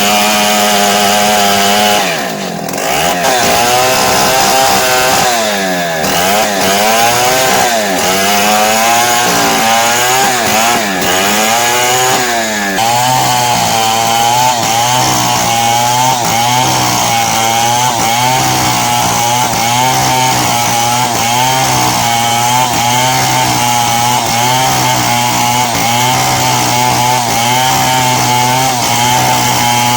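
Stihl two-stroke chainsaw running at high throttle while sawing lumber. About two seconds in the pitch dips, then it rises and falls over and over for about ten seconds before settling into a steady, lower pitch as the saw pulls through the cut under load.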